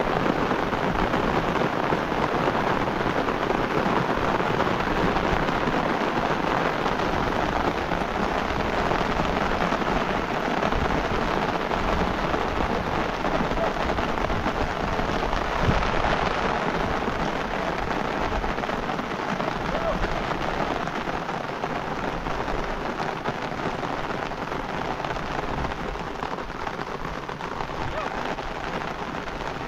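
Steady heavy rain falling, an even hiss, with a brief louder surge about halfway through.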